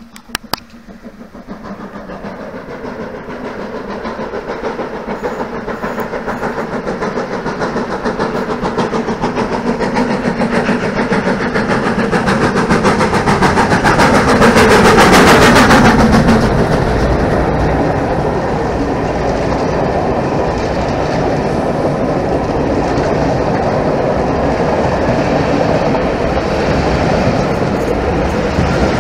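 GWR Castle-class 4-6-0 steam locomotive Clun Castle approaching and passing close by. Its sound builds steadily to a peak about halfway through and falls in pitch as it goes by. The coaches then roll past with a steady clickety-clack of wheels over the rail joints.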